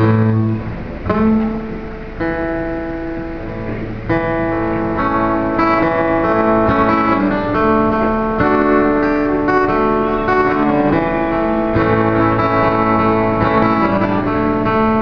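Instrumental introduction of a song: guitar-led music with sustained notes, growing fuller and louder about four seconds in.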